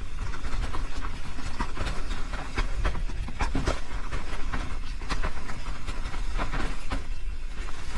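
Mountain bike riding fast down a dirt trail: tyres rolling over rough ground with a dense, irregular rattle and clack from the bike over a steady low rumble.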